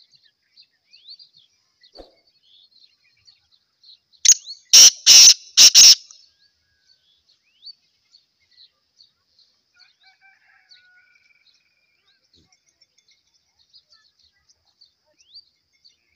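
Male black francolin calling: a burst of four loud, harsh notes about four seconds in, lasting about two seconds. Faint short chirps of small birds run behind it.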